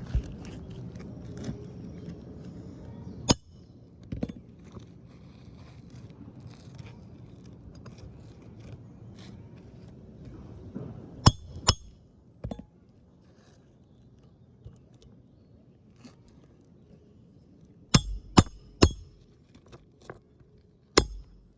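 Scattered sharp clicks and clinks with light scraping as asphalt shingles and a tool are handled on the roof: one near the start, a pair a little past the middle, and three in quick succession followed by one more near the end.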